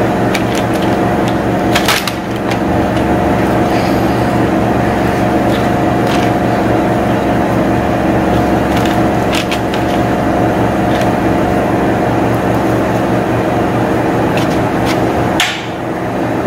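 A steady, loud hum runs throughout. Over it come scattered light taps and clicks as a silicone pastry brush dabs olive oil onto rolled corn tortillas on a parchment-lined sheet pan. A sharper click comes near the end as the brush is set down on a plate.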